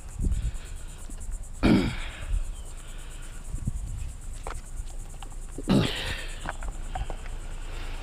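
Steady high-pitched chirring of insects, with two clunks of scrap being handled, about two seconds in and again near six seconds, and a few light knocks.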